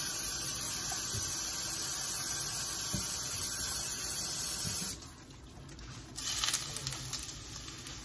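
A steady hiss that cuts off abruptly about five seconds in, followed a second later by a short noisy burst.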